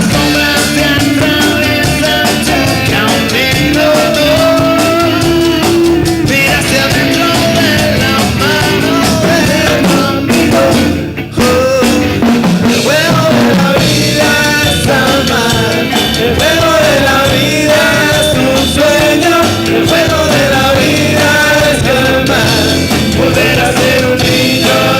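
Live rock band playing a song, with drum kit and a wavering melody line over the band, and a brief break in the music about eleven seconds in.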